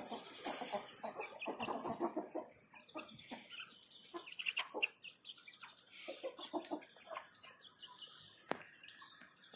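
Young chickens clucking softly while they forage, in short scattered calls with brief clicks in between.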